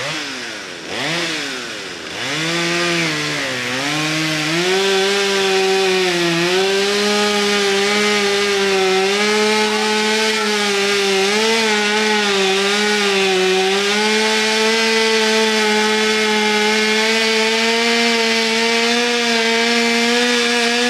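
Chainsaw revved a few times, then held at full throttle cutting into a notched tree trunk to fell it. Its pitch wavers and dips as the chain bogs in the wood, then runs high and steady through the second half.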